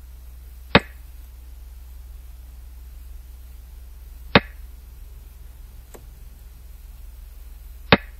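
Xiangqi game-replay sound effect of pieces being moved: three sharp clicks about three and a half seconds apart, one per move, with a fainter click between the last two, over a low steady hum.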